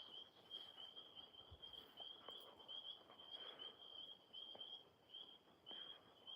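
Faint, high-pitched chirping calls from a cricket or tree frog outdoors, a steady run of short chirps at one pitch, with a few faint soft clicks.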